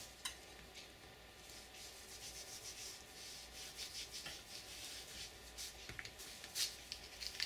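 Faint scraping of a knife blade sawing at the tough blue plastic shot capsule of a CCI Mini Mag .22 LR shotshell, with a few sharper scrapes near the end.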